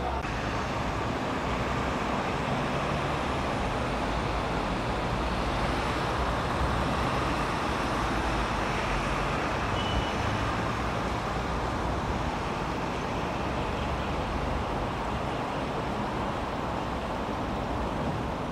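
Steady drone of a small ferry's engine, mixed with a rush of water and wind.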